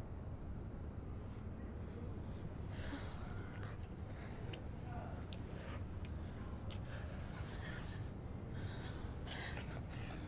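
A cricket chirping in one steady, unbroken high trill over a low night-time hum, with a few faint clicks.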